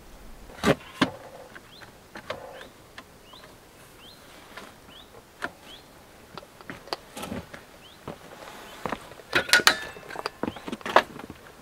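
Sharp clicks and knocks of bar clamps and wood being handled at a workbench: two loud knocks under a second in, scattered lighter clicks, then a quick cluster of clicks about nine and a half seconds in and another knock near the end.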